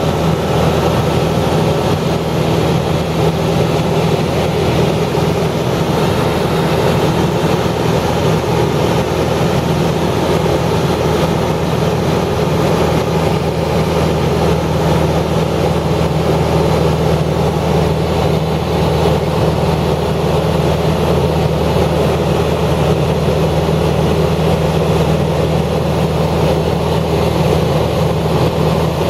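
A steady low mechanical drone with a constant hum, like an engine or motor running without change.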